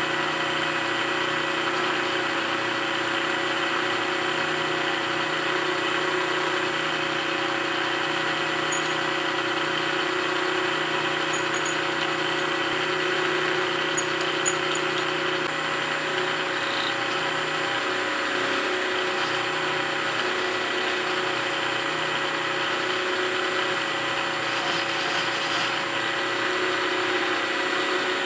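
Milling machine spindle running steadily while an end mill cuts a metal block held in a vise, a continuous machining sound with a few steady tones.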